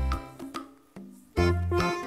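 Cheerful instrumental background music with a bouncy bass line. It drops out briefly about halfway through, then starts again.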